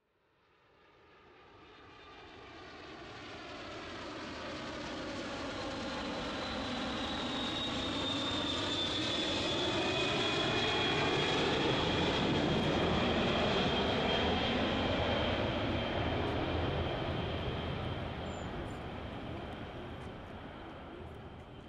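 Boeing 747-400 on landing approach with gear down, its four Rolls-Royce RB211 turbofans passing low overhead: the jet roar builds up from silence, is loudest past the middle and then eases off, with a high fan whine that slowly falls in pitch as it goes by.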